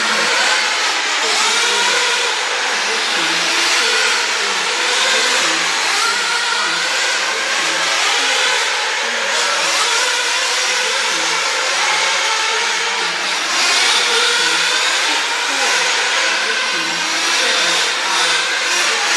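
Several radio-controlled off-road racing cars running together on a track, their small motors constantly rising and falling in pitch as they accelerate and brake, overlapping one another.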